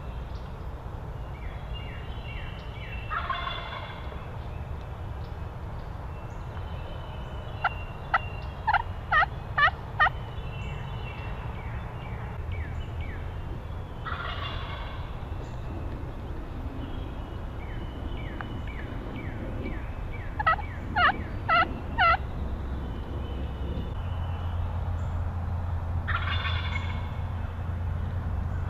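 A wild turkey gobbler gobbling three times, about every eleven seconds, some distance off. Between the gobbles come two runs of loud, sharp yelping notes, five and then four.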